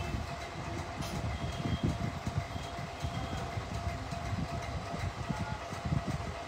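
Low, uneven rumbling noise with a thin steady hum over it.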